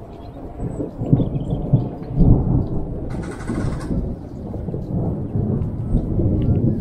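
Stormy weather outdoors: a low, uneven rumble that swells and ebbs, with a brief hiss about three seconds in.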